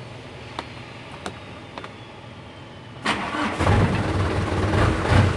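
A few small clicks of the ignition key, then about three seconds in a diesel truck engine cranks on the starter and catches within a second, settling into a steady running rumble. The engine is one that runs rough, misfiring on one cylinder because of a damaged injector nozzle.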